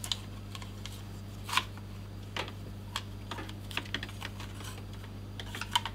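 Light, irregular clicks and taps of a 2.5-inch hard drive and its metal mounting bracket being handled and fitted together by hand.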